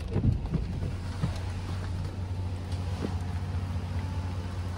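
Chevy 2500HD pickup engine idling, a steady low hum heard from inside the cab, with a few light knocks near the start.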